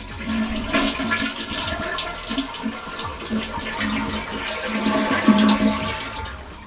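Toilet flushing with its water supply shut off, the tank emptying through the bowl. The rush of water fades toward the end.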